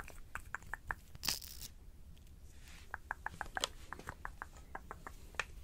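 Quick, even series of light clicks or taps, about five or six a second, in two runs, with a short soft hiss about a second in.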